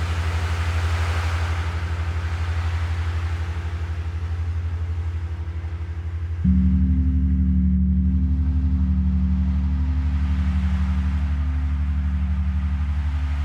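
Beads in an ocean drum with plastic and small metal beads washing back and forth like surf, over low, throbbing gong tones. About six and a half seconds in a gong is struck, and a louder, wavering hum comes in.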